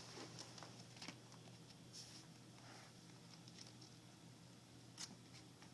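Near silence with a few faint soft taps and rustles of a child's hands on the pages of a picture book, the clearest about five seconds in.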